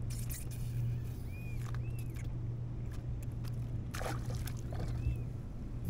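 Steady low hum on open water, with scattered clicks and rustles of a small fish being handled and unhooked, and a few short high chirps.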